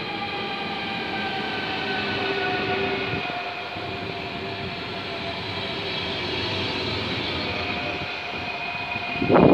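SNCF TER 2N double-deck electric multiple unit (Z 23500 / Z 24500 class) rolling slowly past, its traction equipment whining in several steady tones that slowly fall in pitch over the rumble of the wheels. A sudden louder rush comes right at the end.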